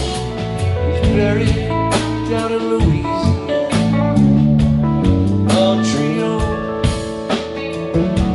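Live band playing a blues-rock song: electric guitars, drum kit and keyboard over a steady beat, with drum hits throughout.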